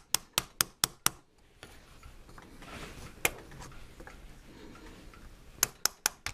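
Quick light taps, about four a second, driving a wooden dowel against the steel front barrel band of a Yugoslav M48 Mauser to knock the band back into place on the stock. One run of taps stops after about a second, a single tap comes midway, and the tapping starts again near the end.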